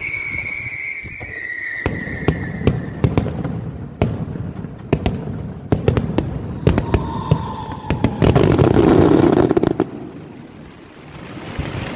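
Aerial fireworks going off in quick succession: many sharp bangs, with falling whistle tones in the first few seconds and again around seven seconds. About eight seconds in comes a dense crackling barrage, the loudest part, which dies away near the end.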